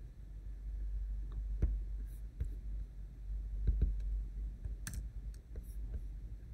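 Several scattered, sharp clicks of a computer mouse and keyboard as text is selected, copied and pasted, over a low steady hum.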